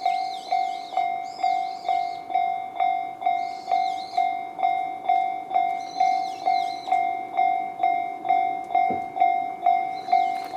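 Japanese level-crossing alarm sounding Tobu Railway's 'sound C' electronic bell, a steady ding repeating about twice a second, signalling that a train is approaching. Birds chirp now and then above it.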